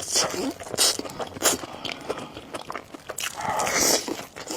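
Close-up eating sounds: noodles being slurped and chewed, in several short hissy bursts with small wet clicks between them.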